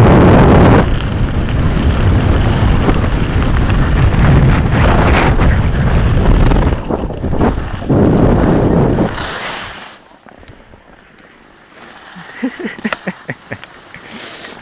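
Wind buffeting the microphone of a skier's handheld camera during a fast downhill run, mixed with skis running on snow. It cuts off abruptly about ten seconds in as the skier slows. Quieter snow sounds and a short run of sharp clicks follow near the end.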